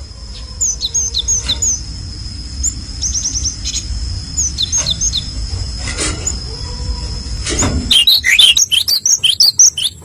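Small songbirds chirping: scattered short, high chirps, then a fast run of loud chirps near the end, over a low rumble.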